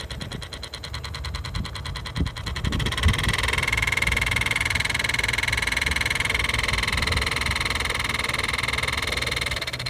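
The failing original blower motor of a 2005 Toyota Camry, run loose outside its housing, making a steady whine with a fast, even flutter, which gets louder about three seconds in. This is the faulty motor's noise; it also wobbles and needed a nudge to start.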